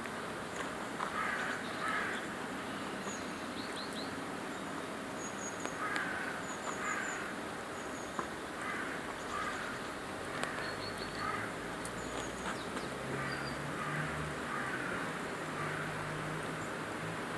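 Crows cawing again and again, often two calls close together, with small birds giving short high chirps. A low hum joins about halfway through.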